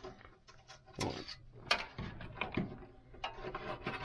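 Small irregular clicks and rattles of cable connectors and wires being handled inside a desktop computer case, as the chassis fan lead is pulled off the old motherboard. The sharpest clicks come about one second in and again just before two seconds.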